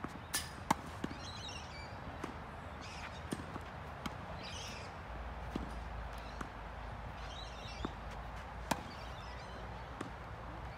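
Tennis rally: sharp pops of the ball struck by racquets and bouncing on the court, coming irregularly about every second, with softer scuffing sounds between them.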